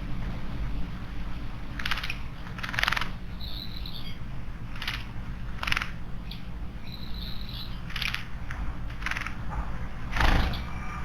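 Small wild birds at a garden stone water basin: a series of short harsh bursts, one every second or two, with a couple of brief high calls, over a steady low hum.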